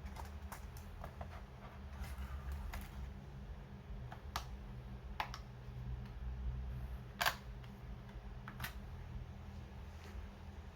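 Scattered light clicks and taps of plastic laptop parts being handled while an HP EliteBook 8440p is taken apart, the loudest about seven seconds in, over a low steady hum.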